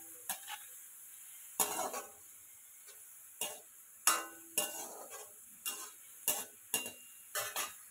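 A slotted spatula scraping and clinking against a metal kadhai about ten times at irregular intervals as fried potato cubes are scooped out of the hot oil. A faint sizzle of frying oil runs underneath.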